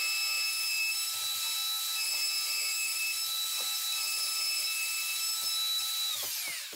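Trend plunge router running at speed with a steady high whine while cutting a worktop bolt recess through a worktop jig. Near the end it is switched off and spins down, the whine falling away.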